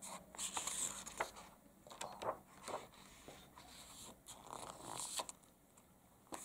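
Paper rustling as hands handle a paperback picture book and turn a page: a string of short rustles and soft clicks.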